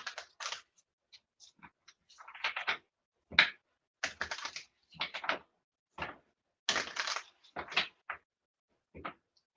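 A tarot deck being shuffled and handled by hand: a run of short, irregular papery rustles and card slaps, one sharper slap about a third of the way in.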